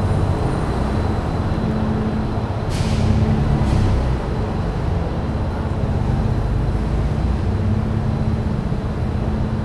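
Steady low rumble of vehicles in an underground car park, with two short hisses about a second apart, roughly three seconds in.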